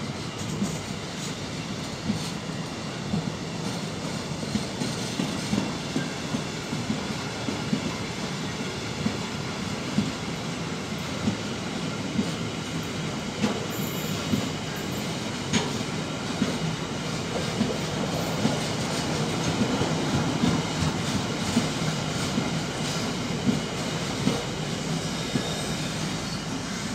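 Freight train of car-carrier wagons loaded with vans rolling steadily past. It makes a continuous rumble with a regular clack of wheels over the rail joints, and a brief high squeal about halfway through.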